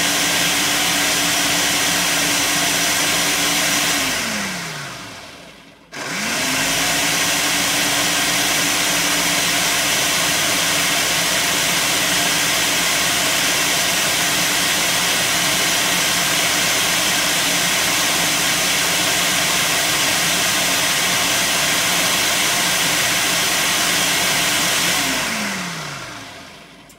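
Ninja countertop blender running its automatic smoothie program on a spinach, avocado and frozen-fruit smoothie. The motor runs steadily, winds down to a brief stop about five seconds in, starts again abruptly and runs on steadily, then winds down and stops near the end, finishing the program.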